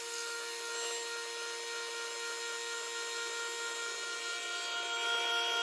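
Coffee machine running while it dispenses coffee into a mug: a steady motor hum with a held pitch and a hiss over it.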